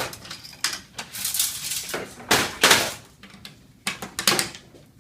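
Desktop computer being torn apart by hand: metal case parts knocking, scraping and clattering, with the loudest crash about halfway through.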